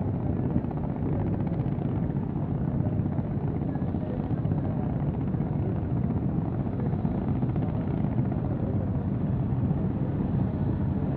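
Steady low drone of a river vessel's diesel engine under way, with a faint steady hum running through it.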